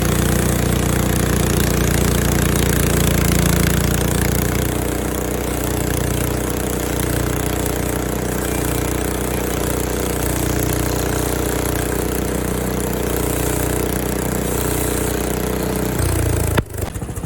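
Frontier OS23 portable bandsaw mill running steadily with its small gas engine, during a first cut across the top of an apple log. The sound changes near the end and drops off sharply.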